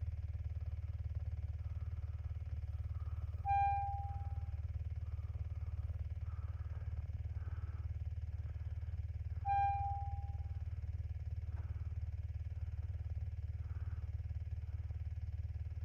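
Steady low drone of a Honda vehicle's engine running, with two single decaying chime tones about six seconds apart, like a dashboard warning chime.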